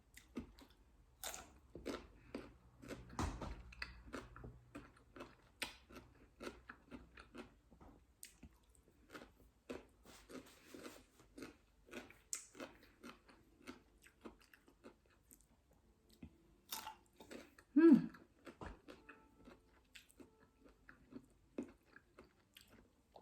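Close-up mouth sounds of a person biting and chewing crunchy unripe green mango, a steady run of small crunches and wet clicks. A short hummed vocal sound falls in pitch about three-quarters of the way through.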